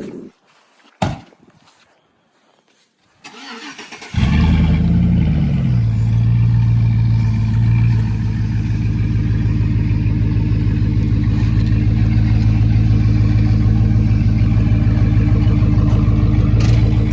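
A vehicle engine is cranked and catches about four seconds in, rises briefly and settles into a loud, steady idle. A single click comes about a second in.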